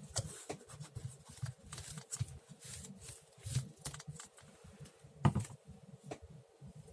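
Paper being handled and pressed down on a work table: irregular soft rustles and light taps, with one sharper knock about five seconds in.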